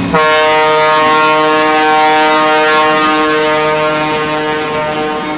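ALCO RS-3 diesel locomotive's air horn sounding one long, steady blast of about five seconds as the locomotive passes at close range. The blast starts abruptly and dips briefly near the end.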